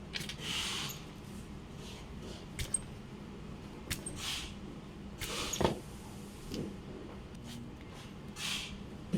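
Scattered sharp clicks and short rustling hisses of small parts being handled, over a faint steady hum.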